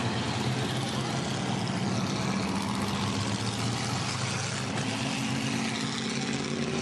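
A pack of hobby stock race cars going by at racing speed, several engines running at once at a steady level, their pitches shifting as the cars pass.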